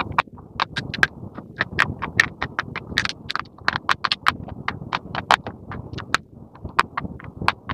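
School chalk being bitten and chewed close to the microphone: a dense run of sharp, crisp crunches, several a second, over a low steady hiss.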